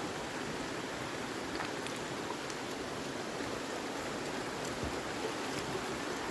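Creek water rushing steadily after a good rain, an even hiss with no breaks.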